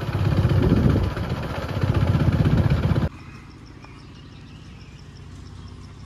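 Motorcycle engine running with road and wind noise while riding, cutting off abruptly about three seconds in. Then a quiet low hum with a faint high ticking, several ticks a second.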